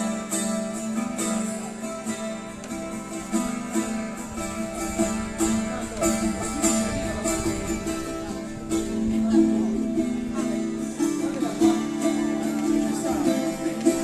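Acoustic guitar playing through the stage sound system, plucked notes and chords ringing on.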